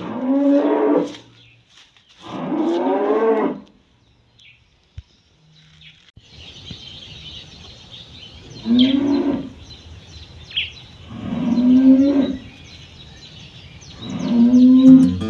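Cattle mooing: five separate calls of about a second each, two in the first few seconds and three more spaced over the second half.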